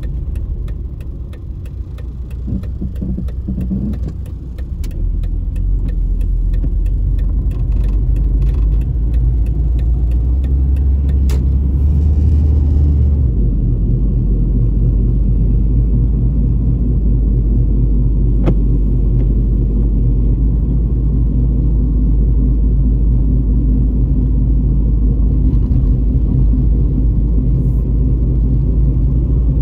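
Plymouth Neon's four-cylinder engine and road rumble heard from inside the cabin while driving. The low rumble is steady and grows louder about five seconds in as the car gets moving.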